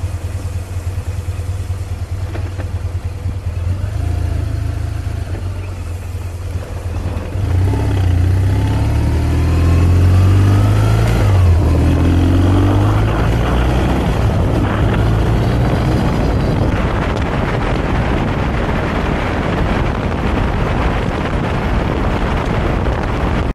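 2005 BMW R1200GS's flat-twin boxer engine running under way on a gravel road. About seven seconds in it gets louder as the bike accelerates, its pitch rising and falling a few times, then it settles into a steady run under a growing rush of wind and tyre noise on the gravel.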